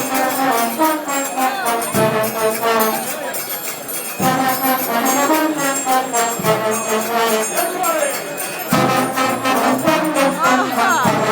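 Trombones playing a tune together in short phrases that start anew about every two seconds, with light high-pitched percussion hits alongside.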